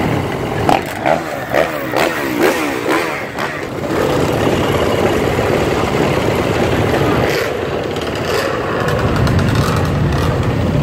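Dirt bike and ATV engines: in the first few seconds the engines rev repeatedly, the pitch rising and falling, then they run at a steady pitch.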